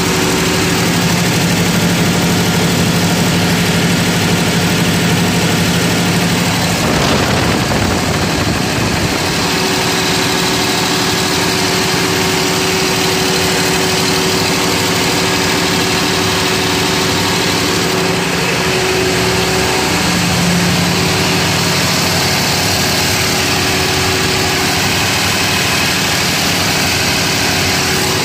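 Heat-exchanger-cooled Cummins diesel engine of a 750 kVA Powerica generator set running steadily at constant speed, loud and even with a steady hum.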